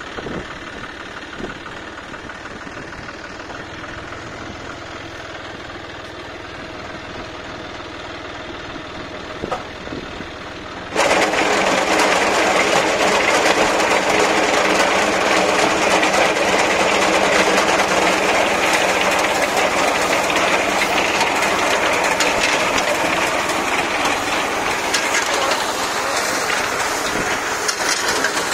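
Tractor engine running under load with the clatter of a tractor-mounted reaper's cutting mechanism working through wheat. About eleven seconds in, the sound jumps suddenly louder and harsher and stays that way.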